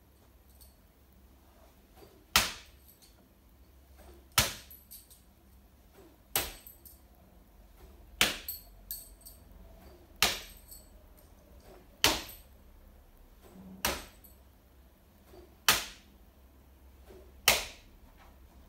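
Nine bo shuriken, Japanese straight throwing spikes thrown without spin, striking a target board one after another: a sharp thunk with a short ring about every two seconds.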